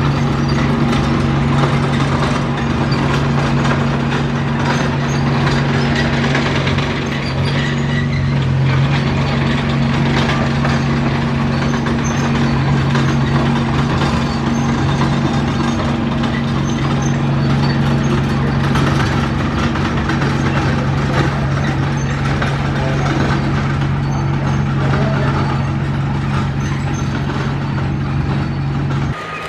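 Heavy diesel engine of an earthmoving machine running steadily under a constant load, with a continuous mechanical clatter over the engine note.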